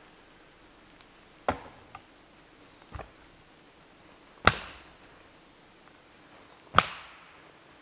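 Chopping wood with a hand-held blade: four sharp strikes, about a second and a half to two seconds apart, the last two the loudest.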